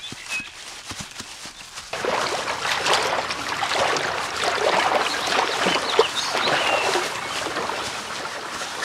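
Running water, like a stream babbling, that comes in suddenly about two seconds in and holds steady, with a few short high chirps over it.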